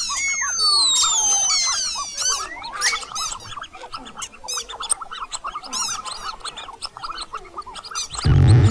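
Mouse squeaking sound effects: rapid, high-pitched squeaks and chittering, with a few falling squeals in the first two seconds. Backing music cuts back in near the end.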